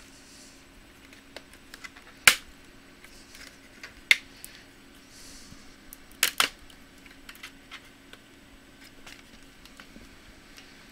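Sharp clicks and taps of hard plastic and small parts being handled during laptop disassembly: many faint ticks, with three loud clicks about two seconds apart, the last one a quick double, over a faint steady hum.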